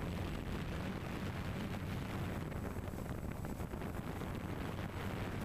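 Steady wind noise on the microphone over distant street traffic, with a low steady hum underneath.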